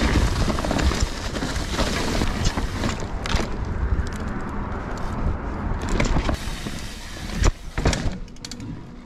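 Mountain bike ridden fast on dirt singletrack: wind rushing over the microphone and tyres rolling on dirt, with sharp knocks and rattles from the bike over bumps, the loudest knock near the end. The noise eases and dulls in the last second.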